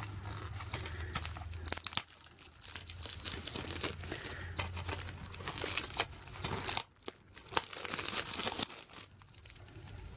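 Plastic shrink wrap being torn and peeled off a DVD case, crinkling and crackling unevenly, with a couple of short pauses in the second half.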